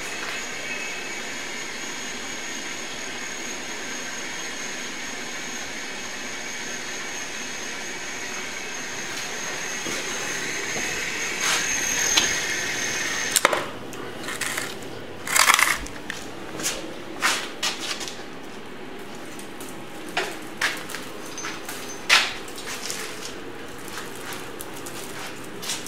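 The small electric motor and heavy gearbox of a homemade hoist running under a hanging load with a steady high whine, cutting off about thirteen seconds in. After that come scattered knocks and rattles as the steel hoist frame is moved across the floor on its casters.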